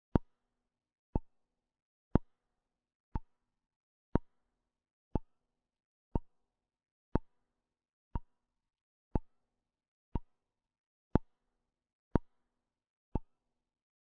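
Clock ticking, one sharp click each second, evenly spaced and steady.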